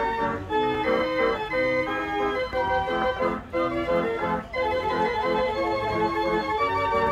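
Fair organ playing a tune, its notes changing quickly over a steady accompaniment.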